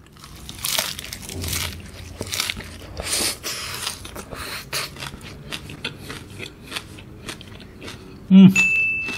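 Close-up chewing of a mouthful of fresh pegaga (Asiatic pennywort) leaves and rice: wet crunching and many small mouth clicks, heaviest in the first few seconds. Near the end comes a short loud low sound, then a steady high beep lasting over a second.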